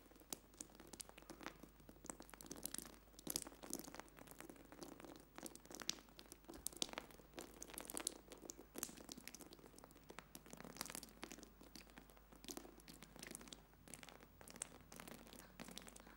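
Hands scooping and pressing into a heap of flour, giving a close, irregular crunching and rustling that starts abruptly after silence and goes on in uneven bursts.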